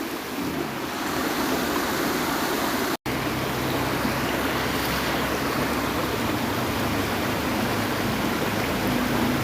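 Steady rush of flowing stream water, with a momentary total gap about three seconds in.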